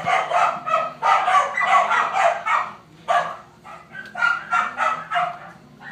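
Four-week-old Keeshond puppies squealing and whining in quick short cries, several a second, while nursing. The cries are densest in the first three seconds, then come in shorter clusters.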